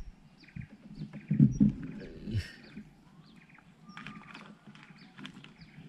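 Hollow knocks and thuds from gear being handled in a small wooden boat, loudest about a second and a half in, with a second knock soon after. Birds chirp in the background.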